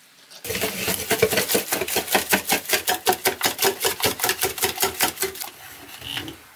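Wire whisk beating cornbread batter in a ceramic bowl, rapid rhythmic strokes of about six a second with the wires tapping the bowl. Near the end the strokes turn softer and slower before stopping.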